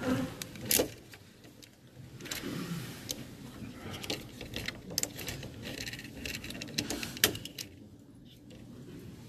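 Handling noise from a phone held against cloth: fabric rubbing and brushing over the microphone, with several sharp clicks and knocks.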